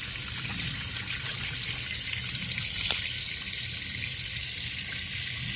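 Water running steadily from a hose into a top-load washing machine's tub, filling it for the rinse cycle.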